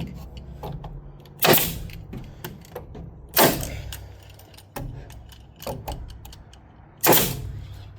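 Pneumatic staple gun firing 1-inch staples into plywood: three sharp shots with a short hiss of air after each, about two, then four seconds apart.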